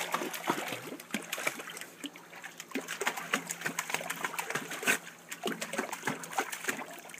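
A small dog paddling in a bathtub, its legs splashing the water in quick, irregular splashes.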